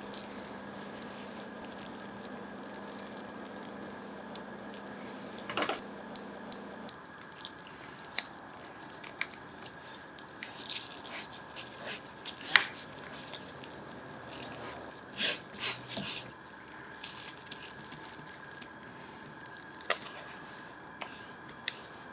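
Hot boiled potatoes being peeled by hand over a steady low hum. After about seven seconds the peeled potatoes are pressed through a sieve, with soft squishes, scrapes and scattered small clicks.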